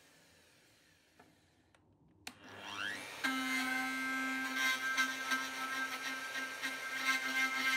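Plunge router switched on about two seconds in: its motor whines up to speed and then runs with a steady high hum, with uneven crackling over it.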